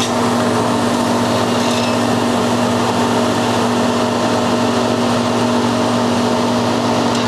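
Soft-serve ice cream machine running with a steady electric hum, a low drone carrying several steady tones, as soft serve is dispensed into a cone.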